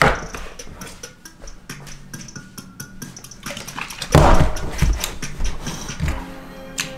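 Background music with light clicking and handling noises, and a louder dull thud about four seconds in.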